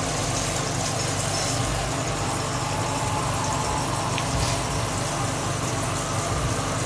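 A bathroom faucet running steadily into a small plastic neti pot held under the stream, filling it with water.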